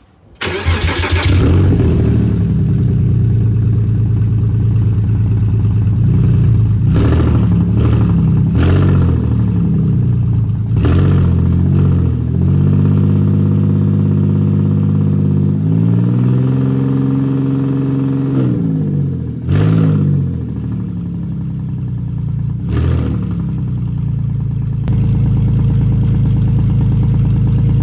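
Porsche Boxster 987's flat-six engine starting and running on the first test after a transmission and clutch reinstall. Its speed changes several times, with a few short knocks in the first two-thirds, before it settles into a steady run. The engine is running without load because the drive axles are disconnected, so it does not stall as the clutch and gears are tried.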